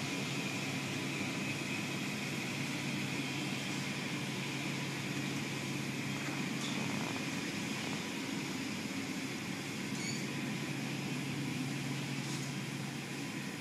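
Automatic car wash heard from inside the car: water and foam spraying and cloth wash brushes sweeping against the car body and windows, over a steady low machine hum that drops out briefly about seven seconds in.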